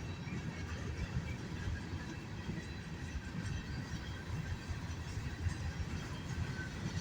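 CSX train rolling along the rails: a steady low rumble of wheels and cars, with faint clatter and no horn.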